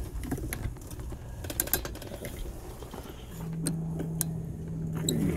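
Solar electric tricycle: scattered light clicks and rattles over a low rumble, then a steady low hum sets in a little past halfway.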